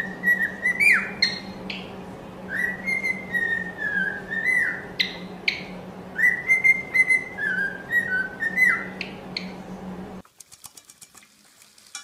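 Cockatiel whistling a warbling tune, with quick rising chirps between the phrases. The whistling breaks off abruptly about ten seconds in, leaving only faint clicks.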